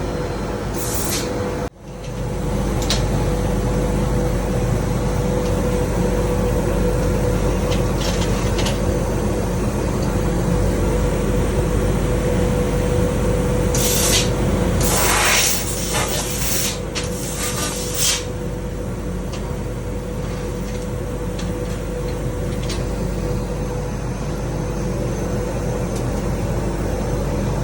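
Laser cutting machine running in a factory with a steady hum and a constant tone, cutting valve holes in gas manifolds. Several short bursts of hissing air come about halfway through.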